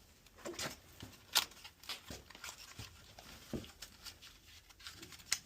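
Faint, irregular clicks and light knocks, the small handling noises of someone working with parts by hand, with a slightly sharper click about a second and a half in and another near the end.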